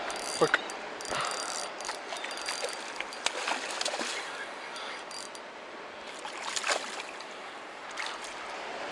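A hooked pink salmon thrashing at the surface of a shallow river in several sharp splashes, over the steady rush of the current.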